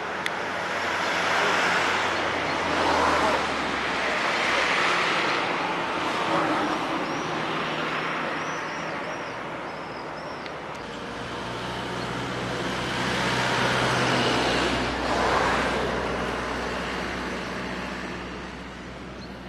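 Road traffic: cars driving past on a road, the noise swelling and fading twice.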